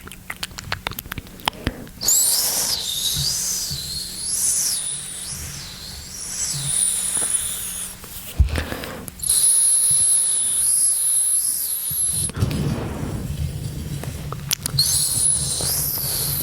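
Close-miked ASMR mouth sounds: a quick run of wet mouth clicks, then long, high-pitched squeaky sounds that waver up and down in pitch, coming in three spells with short breaks between them.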